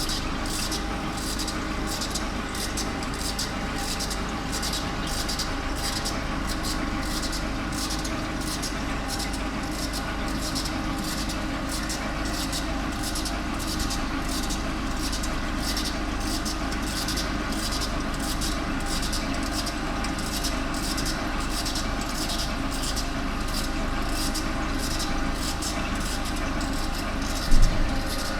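Electrical discharge machine (EDM) running: a steady machine hum with several steady tones and a regular high ticking about twice a second. A short knock near the end.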